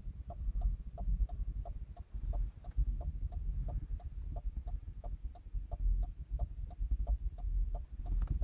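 Hazard-light flasher relay of a VAZ 2114 ticking steadily, about three ticks a second as the hazard lights flash on and off, over a low rumble.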